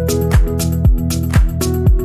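Background electronic music with a steady beat of about two kick-drum strokes a second under held chords.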